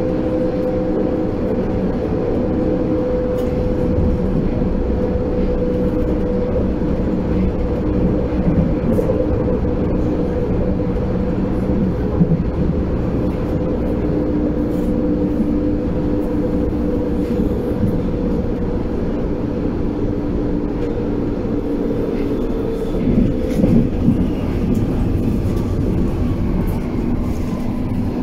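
Berlin U-Bahn class H97 train heard from inside a passenger car: a steady electric motor hum over a dense rumble of wheels on rail, with a few louder knocks about 12 s in and again around 23–24 s.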